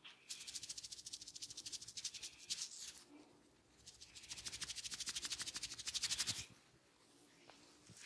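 Fingertips rubbing fast and hard through a person's hair and scalp during a head massage, a rapid rhythmic rustling of about nine or ten strokes a second. It comes in two bursts of roughly three seconds each with a short pause between.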